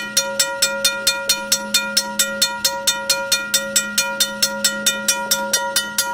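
Safetran railroad grade-crossing bell ringing steadily with rapid, even strikes, about four a second, each leaving a ringing tone. Tape over the bell partly mutes it, but it is still pretty loud.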